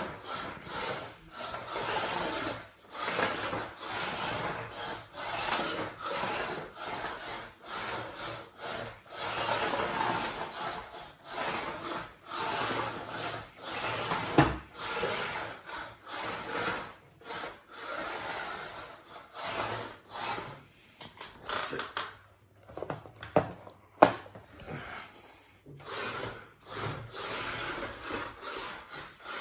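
Beetleweight combat robot driving in short stop-start bursts, its 3D-printed plastic body scraping and rubbing across the floor. Two sharp knocks, about 14 and 24 seconds in.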